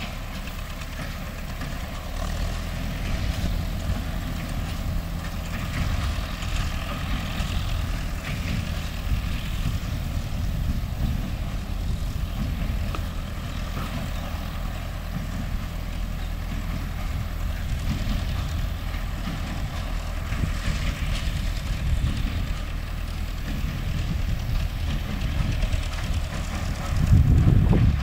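MTZ-5 tractor's diesel engine running steadily while it works a hay baler, growing louder about a second before the end.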